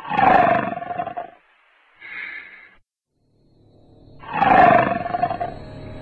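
Two loud roars, each a little over a second long with a falling pitch, with a shorter, softer one between them, as a horror sound effect. Eerie music swells in near the end.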